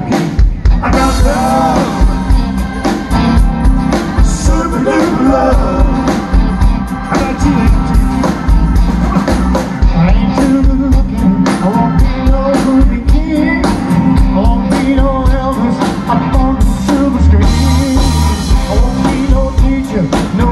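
Live rock band playing a song with drum kit, bass guitar, electric and acoustic guitars and keyboards, with singing at times over a steady drum beat.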